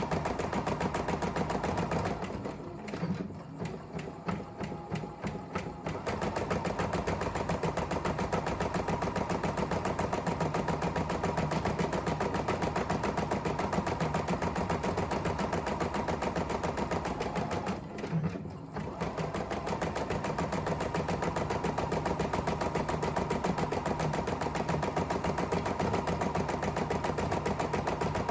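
ES3 computerized embroidery machine stitching a design, its needle running in a fast, steady chatter. A few seconds in, and again briefly past the middle, it drops to quieter, separate stitches about four a second before picking back up to full speed.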